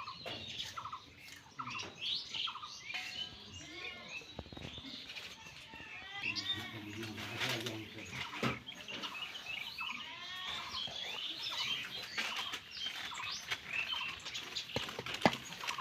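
Birds chirping and calling continuously, many short quick chirps overlapping, with scattered taps and rustles and a sharp tap near the end.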